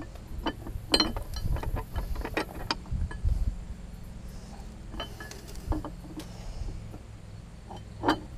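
Scattered metal clinks and knocks, a few a second at most, as a spacer, bolts and wrench are worked into the mounting between an outboard motor and its jack plate, over a low steady rumble.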